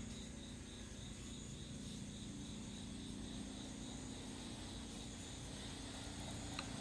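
Insects chirring steadily outdoors: a high, regularly pulsing trill over a higher continuous whine, with a low steady hum underneath.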